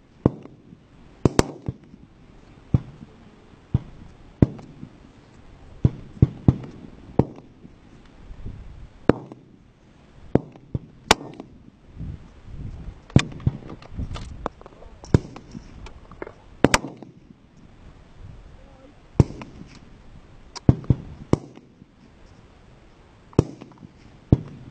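Fullbore target rifles firing along a firing line: about twenty sharp shots at irregular intervals, some close and loud, others fainter from further down the line, each followed by a brief rolling echo.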